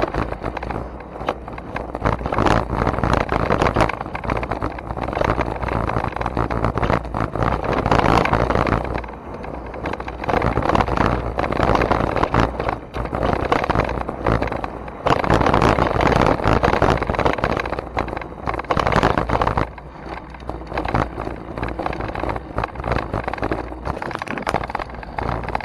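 Wind rushing and rumbling over the microphone of a camera riding fast down a dirt trail, mixed with the noise of tyres rolling over the dirt and rattling. The rush swells and eases with speed, loudest in two long stretches early and past the middle.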